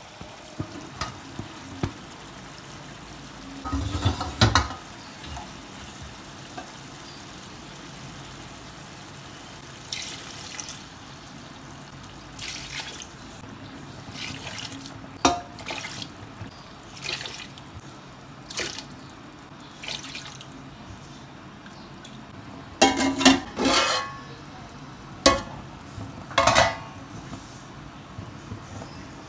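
Water splashing into a metal cooking pot of green masala gravy with meat, in a series of short uneven pours. Between pours there is a faint steady hiss from the pot on the stove.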